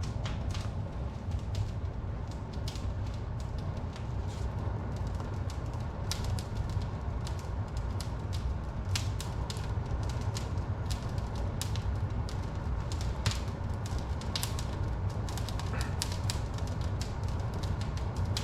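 Firewood burning in a fireplace, crackling with frequent irregular sharp pops over a steady low rumble.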